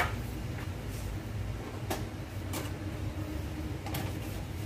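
A sharp knock as a wooden rolling pin is set down on a silicone baking mat, followed by a few lighter knocks and taps of utensils being handled, over a steady low hum.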